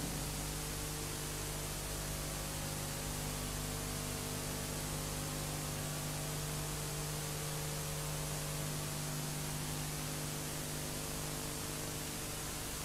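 Steady hiss with a low electrical hum: the bare noise floor of the recording, with no music or other sound.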